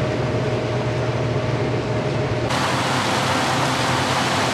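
John Deere combine harvester running while it harvests corn: a steady machine drone with a low hum and a faint whine, heard from inside the cab. About two and a half seconds in it switches abruptly to a brighter, hissier rush of the combine working, heard from outside.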